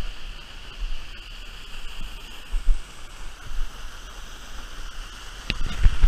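Rushing river water, a steady even rush, with irregular low rumbles on the microphone and a sharp click near the end.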